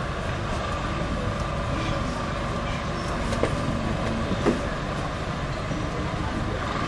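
Steady low outdoor rumble with faint distant voices and a thin steady high tone, broken by two short knocks about three and a half and four and a half seconds in.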